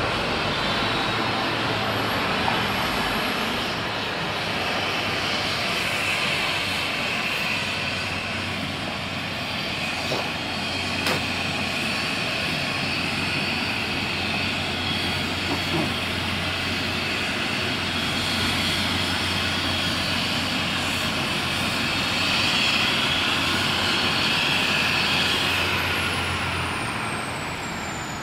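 Ambulance helicopter running on the ground, a steady turbine whine over a low hum. Near the end the low hum cuts out and a high whine glides downward as the engine winds down.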